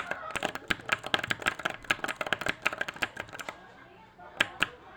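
Keys clicking on a wireless keyboard: a quick run of keystrokes for about three and a half seconds, then a pause and two more keystrokes near the end.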